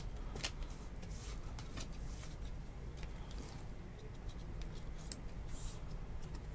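Faint scrapes and light clicks of a trading card being handled and slid into a clear plastic card holder, over a low steady hum.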